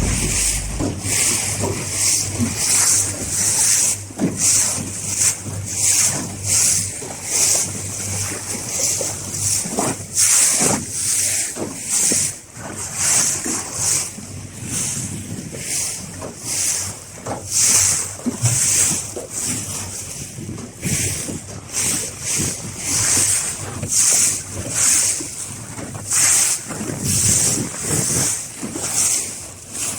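Wind buffeting the microphone over the rush and splash of sea water around a small fishing boat, the hiss swelling and fading about once a second.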